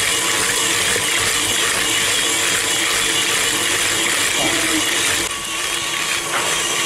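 Planetary stand mixer running, its wire whisk beating a thick butter-and-sugar shortcrust mixture in a steel bowl. The steady noise drops a little about five seconds in.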